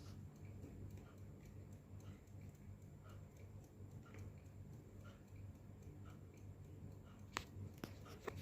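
Near silence: faint room tone with a steady low hum, broken by a few small clicks, the sharpest about seven seconds in.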